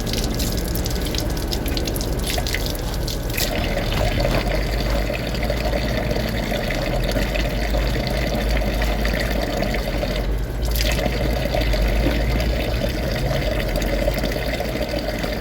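Floodwater flowing steadily with a continuous, loud rushing noise.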